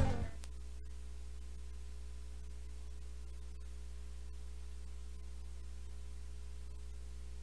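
The tail of an outro jingle dies away in the first moment, leaving a steady low electrical hum with faint hiss.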